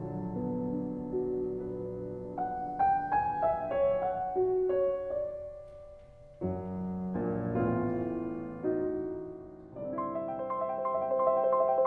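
Solo piano playing slowly: held chords under a gentle melody, a new low chord about six seconds in, then quicker repeated notes near the end.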